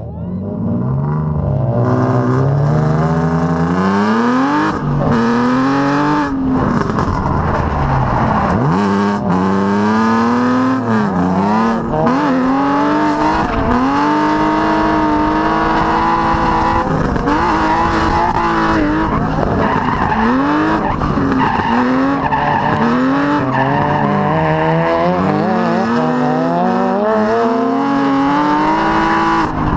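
Drift car engine revving up and down over and over as the throttle is worked, with the tyres squealing and skidding through the slides.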